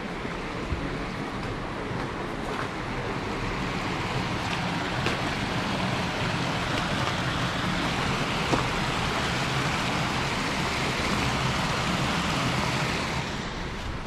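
Shallow river water rushing and spilling over a low weir, a steady hiss that grows louder in the middle and eases near the end.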